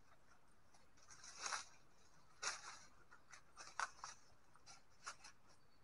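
Faint dry rustling and crackling of leaves and tree debris in a few short scrapes spread over several seconds, as a hand pulls a dead squirrel out of litter lodged on the tree.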